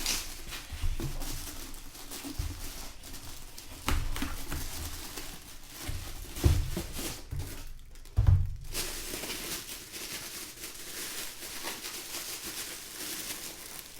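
Packaging being handled and opened: crinkling and rustling of plastic wrap and cardboard, with several knocks and bumps, the loudest about four, six and a half and eight seconds in.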